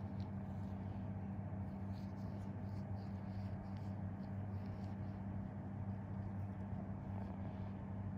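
A steady low electrical hum, with faint soft ticks and rustles from gloved fingers and cotton pads pressing on the skin.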